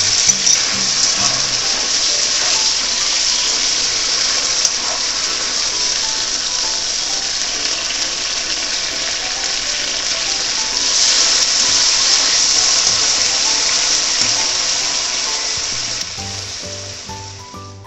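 Soy sauce and mentsuyu sizzling steadily in a hot frying pan with pan-fried eggplant pieces, getting louder a little past the middle and fading out near the end. Light background music plays underneath.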